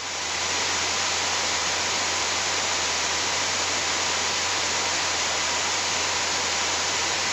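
Steady, even hiss of radio static on the aircraft's radio and intercom audio feed, swelling in over the first half second, then holding level.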